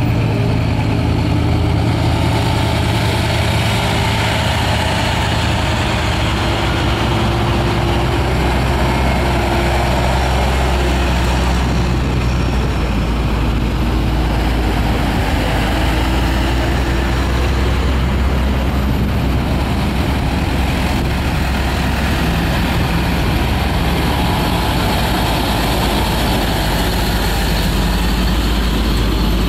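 A line of tow trucks, flatbeds and wreckers, driving past one after another, their engines running with a steady low hum.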